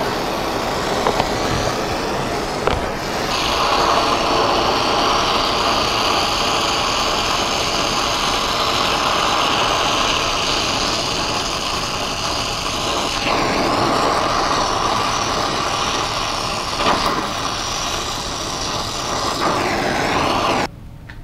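Brazing torch flame hissing steadily as it heats a copper tubing joint fed with a filler rod. The hiss brightens about three seconds in and cuts off suddenly near the end.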